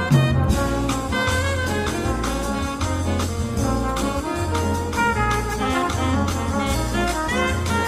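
Background music led by brass instruments, with a steady bass line and a regular beat.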